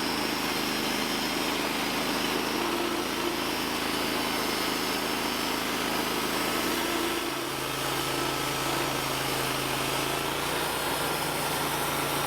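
Portable band sawmill's engine running steadily, with a change in its tone about seven seconds in.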